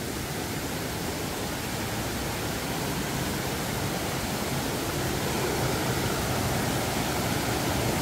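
Mountain stream rushing over boulders and a small cascade: a steady watery rush that grows a little louder toward the end.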